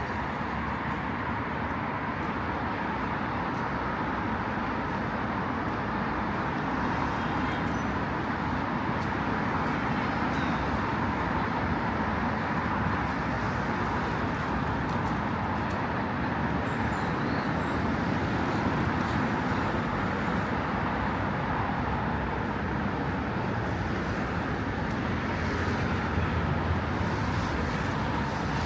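Steady road traffic noise from cars passing on a busy city street.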